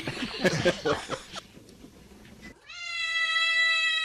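Tabby cat, clinging to a door-mounted mini basketball hoop, giving one long, steady meow that starts about two and a half seconds in. Before it there is rustling and scuffing with a few clicks.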